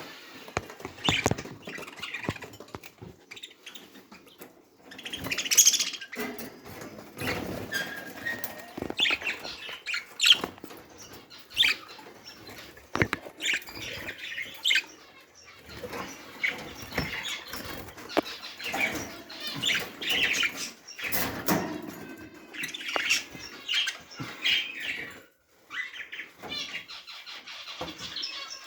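Pet birds moving about, flapping their wings and chirping, among irregular scratchy clicks and rustles.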